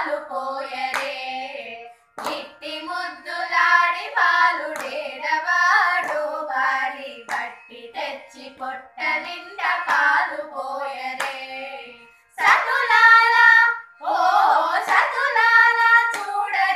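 Young female voices singing a Carnatic devotional song together without instruments, with hand taps on the lap keeping the tala. The singing breaks off briefly about two seconds in and again around twelve seconds.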